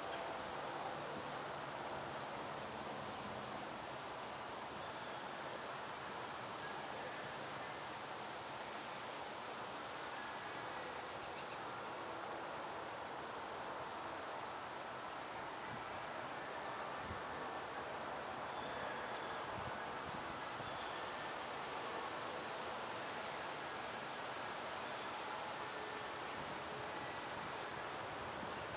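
Steady high insect trill held on one pitch with a faint fast pulse, over a quiet outdoor hiss.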